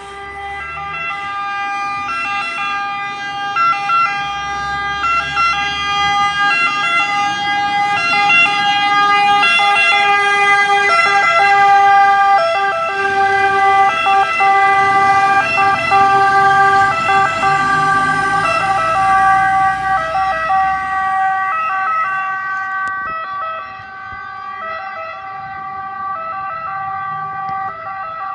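Two-tone sirens of Italian fire engines, a Ford Ranger wildfire pickup and a Mercedes-Benz Actros pumper, sounding continuously as the trucks pull out, the alternating pitches of more than one siren overlapping. Truck engine noise swells in the middle as a vehicle passes close, then fades.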